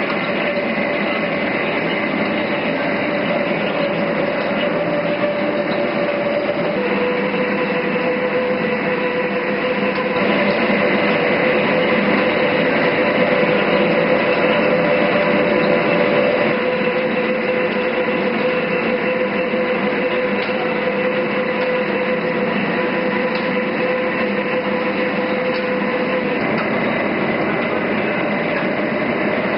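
All-geared lathe running: a steady mechanical hum with a gear whine, whose pitch steps down a little about seven seconds in, and which grows louder for a few seconds in the middle.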